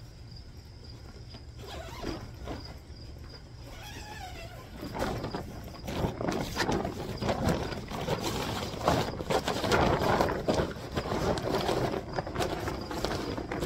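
A plastic tarp tent wall rustling and crinkling as it is handled and lifted open, getting louder about five seconds in, over a steady chirring of crickets.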